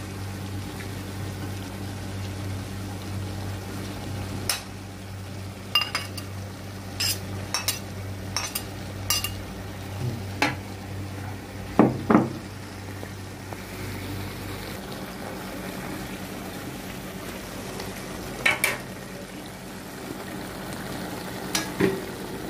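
A metal spatula stirring, scraping and clinking against an aluminium wok while chicken and vegetables fry in it with a steady sizzle. The strokes come irregularly, with a couple of louder knocks about halfway in. A low steady hum underneath stops about two-thirds in.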